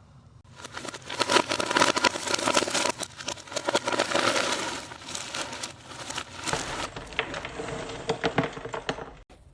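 Dense crackling and crinkling handling noise, with many small clicks and knocks. It starts about half a second in and stops abruptly near the end.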